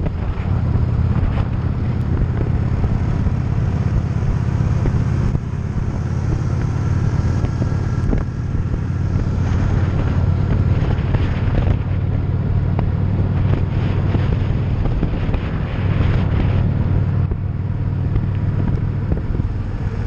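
V-twin cruiser motorcycle engine running at a steady cruising pace, with wind rushing over the microphone.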